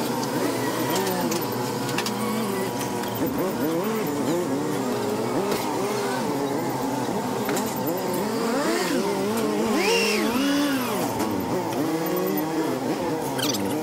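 Engine revving up and down again and again, its pitch rising and falling every second or so, with a higher whine that climbs and drops about ten seconds in.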